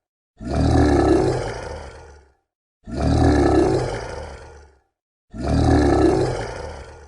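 Monster roar sound effect: the same roar played three times in a loop, each about two seconds long, starting loud and fading away, with a short silence between them.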